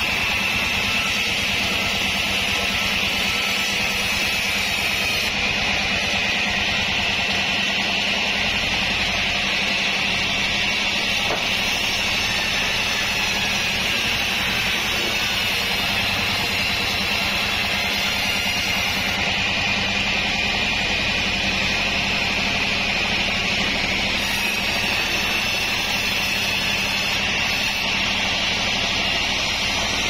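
Sawmill band saw cutting lengthwise through a log: a steady high whine of the blade in the wood over a constant low hum from the machine.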